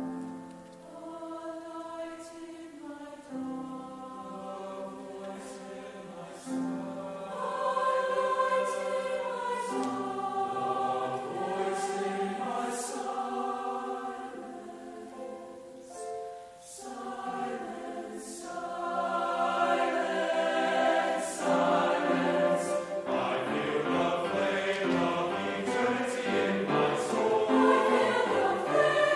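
Mixed choir singing sustained notes in harmony, soft at first and swelling after about seven seconds, easing off briefly around the middle, then building to its loudest near the end, with the 's' sounds of the words clearly heard.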